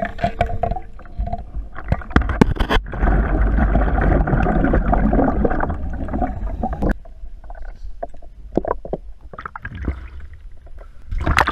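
Underwater sound of a scuba diver in a flooded cave: breathing bubbles gurgling out of the regulator, heaviest for about four seconds in the middle, with scattered knocks and clicks of gear.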